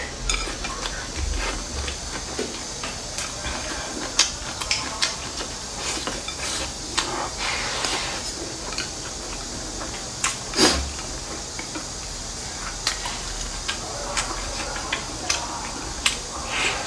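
Chopsticks clicking and clinking irregularly against bowls and dishes during a meal, over a steady hiss. The loudest clink comes about two-thirds of the way through.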